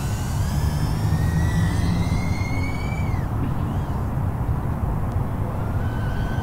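Small whoop FPV quadcopter's motors and propellers whining in flight. The pitch climbs for about three seconds as the throttle goes up, then falls away, and the whine comes back lower near the end, all over a steady low rumble.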